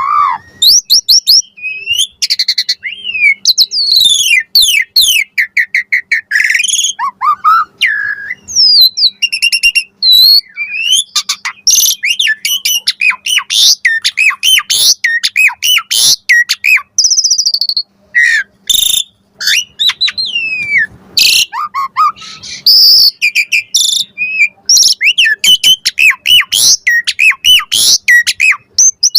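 Asian pied starling singing a long, varied song: rapid rising and falling whistles, fast trills and sharp clicks, with hardly a pause.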